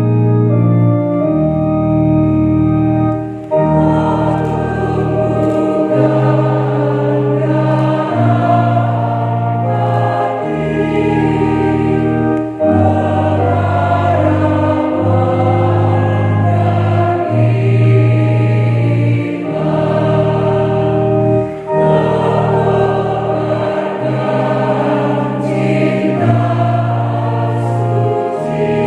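Church choir singing a hymn with an electronic keyboard playing organ-voiced chords. The keyboard plays alone briefly before the choir comes in a few seconds in, and the sustained chords change every second or two.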